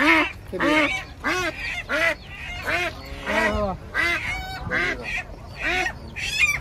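White domestic ducks quacking over and over, short harsh calls about one and a half times a second, as they are held up by their wings and legs.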